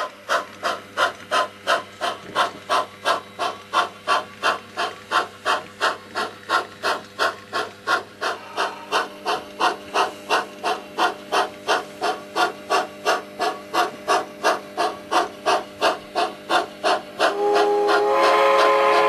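Sound decoder of an HO-scale Pennsylvania Railroad 0-6-0 steam switcher model playing steady exhaust chuffs, about two and a half a second, as the locomotive moves. Near the end a multi-chime steam whistle starts blowing over them.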